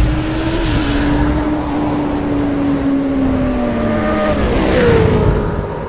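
Motorcycle engine sound effect: a high engine note held over a rushing noise, sliding lower in pitch, with a quicker drop about four and a half seconds in.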